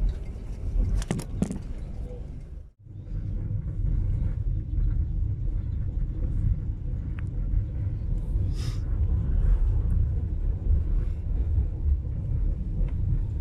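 Passenger train running: a steady low rumble of the carriage and its wheels on the rails, with a brief break about three seconds in.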